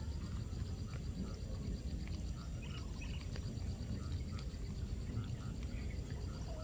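Rural wet-ground ambience: a steady low rumble, with a frog croaking over and over at about two calls a second and insects buzzing faintly high above.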